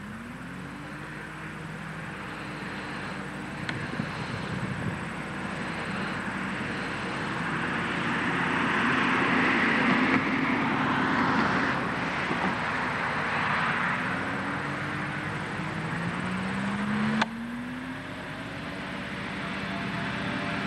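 100 hp 2SI AMW two-stroke engine and propeller of a RagWing Wood Stork light plane running on its takeoff runs. Its pitch rises several times as the throttle is opened, and it is loudest around the middle. A single sharp click comes about three-quarters of the way through.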